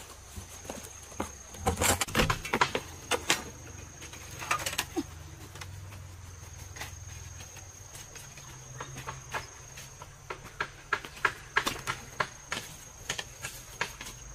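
Knocks and clatter of gear being handled and set down (a small water pump, a plastic bucket and a hose), with footsteps on grass. Behind it runs a steady high-pitched insect drone that drops out for a few seconds between about two and six seconds in.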